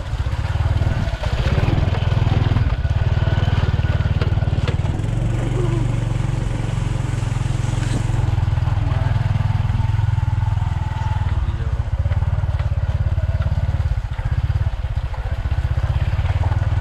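Motorcycle running steadily as it is ridden, heard from on the bike, with a heavy, continuous low rumble.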